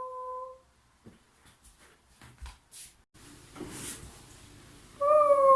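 Faint clicks and taps of chair parts being handled, between two hummed notes: a short one at the start and a longer, louder one near the end that sinks slightly in pitch.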